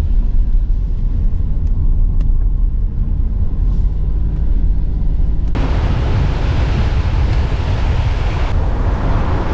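A car driving on a road: a steady low rumble of engine and tyres. About halfway through, a louder rushing hiss suddenly joins in and carries on.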